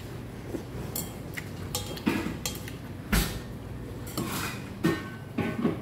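Chopsticks clinking and knocking against a stainless steel bowl of cold noodles in broth as the noodles are stirred and lifted: several separate sharp clinks, the heaviest a dull knock about three seconds in.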